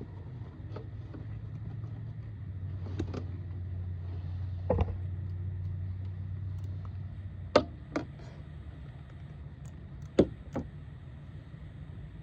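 Plastic interior trim being worked loose from its retaining clips, giving a series of sharp clicks and knocks: the loudest about five, seven and a half, and ten seconds in. A steady low hum runs beneath.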